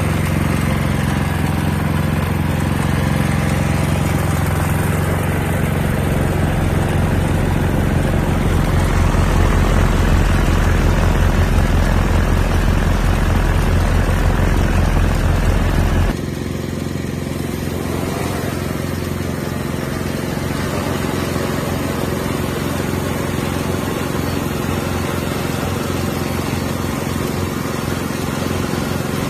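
Large multirotor cleaning drone's propellers and motors running with a steady low hum, in strong wind. The sound changes abruptly and gets quieter about halfway through.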